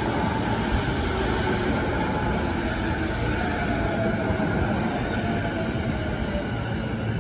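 JR E233-1000 series electric commuter train rolling slowly past the platform: steady rumble of wheels on rail, with the whine of its traction motors sliding in pitch.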